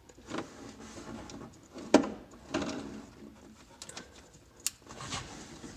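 Plastic wiring connector being worked into its socket by hand: rustling and scraping, with a sharp click about two seconds in and a smaller one near the end.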